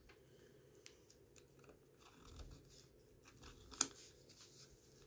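Faint scraping and small clicks of a loosened metal wristwatch caseback being worked off by hand and with a toothpick, with one sharper click about four seconds in.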